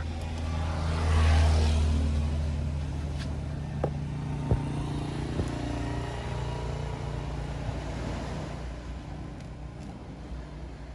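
A motor vehicle's engine running past: it grows loud about a second in, then slowly fades. A few light clicks come in the middle.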